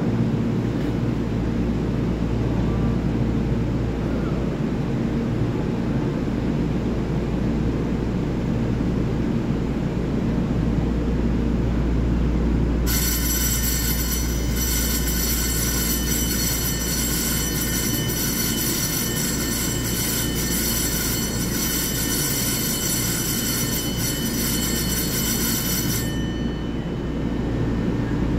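Steady low hum of a standing EMU3000 electric train and the station around it. About halfway through, a platform departure bell starts ringing continuously for about thirteen seconds and then stops abruptly, signalling that the train is about to leave.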